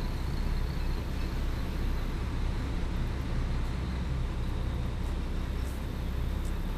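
Steady low rumble of a truck's engine running, with no change in level.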